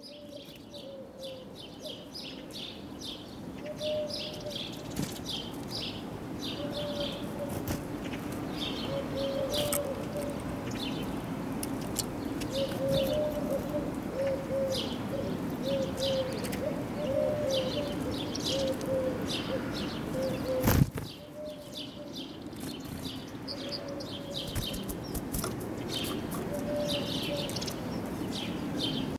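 Small songbirds at a feeder, tits and siskins, chirping in many short high calls, with a lower call repeated in runs beneath them and a steady low hum. A single sharp knock sounds about two-thirds of the way through, the loudest moment.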